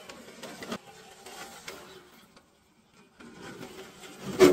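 RC crawler's electric motor and gearbox whining in short bursts as it climbs over rock, with tyres scraping and clicking on the stone. There is a brief gap in the middle, and a loud knock about four seconds in.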